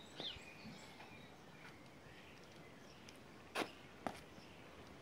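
Quiet outdoor ambience with a faint bird chirp near the start; about three and a half and four seconds in come two short, sharp sneaker steps on brick paving, the first the louder.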